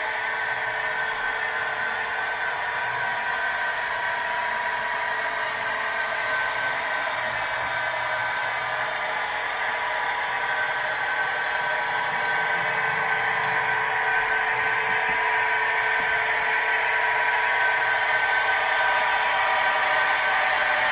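Märklin model locomotive's electric motor whining steadily as it runs along flex track, growing louder toward the end as it approaches.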